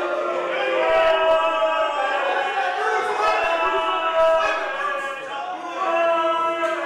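Several voices singing together in long, overlapping held notes.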